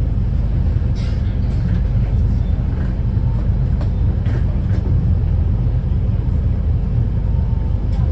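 Wrightbus New Routemaster series-hybrid bus, its Cummins ISBe 4.5-litre inline-four diesel running steadily as the generator engine with a low, even drone. A few short knocks and rattles sound over it.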